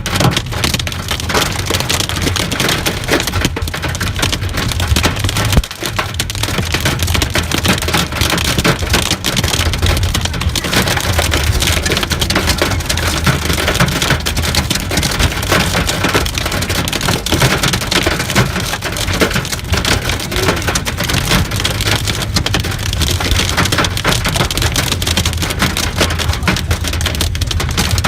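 Hail and heavy rain pelting down in a dense, steady clatter of countless small impacts, over a steady low rumble.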